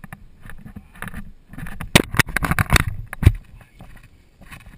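Galloping polo pony heard through the rider's mounted camera: rapid thuds and rattling knocks from hooves, tack and the camera mount, rising to a dense, loud flurry of hard knocks about two to three seconds in.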